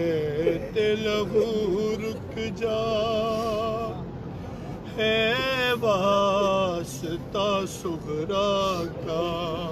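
A man's voice chanting an Urdu noha, a Shia mourning lament, without instruments. The phrases are long and wavering, with short breaths between them.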